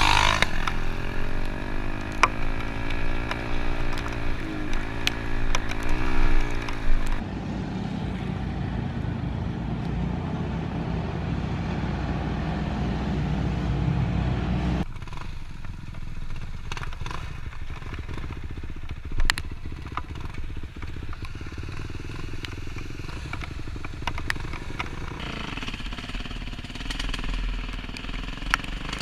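Kawasaki four-stroke dirt bike engines being ridden. The engine note rises and falls with throttle and gear changes in the first several seconds, then runs steadily, drops quieter in the middle, and rises again near the end.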